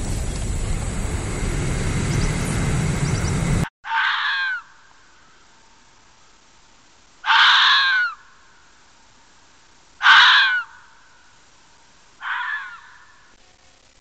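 A steady rushing noise, then, after a cut about four seconds in, four short, high-pitched, scream-like calls spaced a few seconds apart, from a fennec fox.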